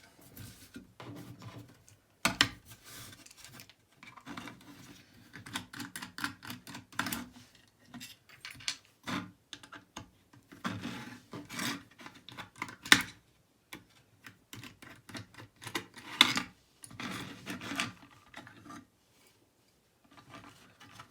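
Antique Chubb lever lock being taken apart by hand: irregular metallic clicks, taps and short scrapes of small brass and steel parts, with sharper knocks about two and a half, thirteen and sixteen seconds in.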